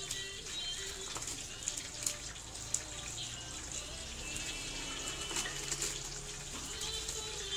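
Crisp fried peyek crackers crackling and a plastic bag liner rustling as they are pressed into a tub by hand, with scattered sharp crunches over a steady hiss.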